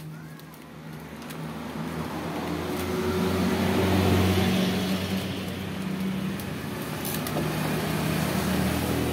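Electric heat gun running with a steady hum and rush of blown air, growing louder over the first few seconds, as it softens vinyl sticker film on scooter body panels.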